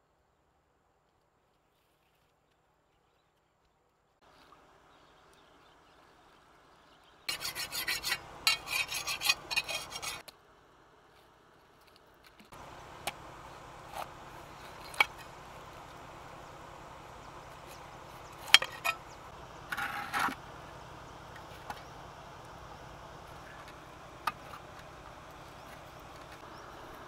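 Silent at first, then loud rasping scrapes, followed by a large knife cutting through a whole pineapple on a wet stone surface. The blade knocks sharply against the stone a handful of times over a steady low hiss.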